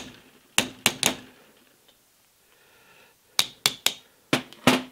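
A combination hammer tapping a steel pin punch to drive a tight pivot pin into a lathe collet closer body: three quick sharp taps about half a second in, three more past the three-second mark, then two near the end, each with a brief metallic ring.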